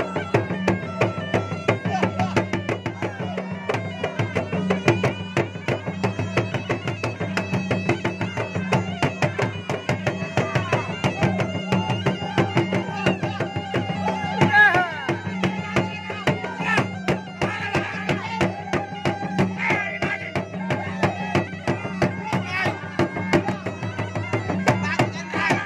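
Makassar gendang drums beaten with a stick and the bare hand in a fast, dense rhythm, with a puik-puik, the Makassar double-reed shawm, playing a wailing, winding melody over a steady low drone.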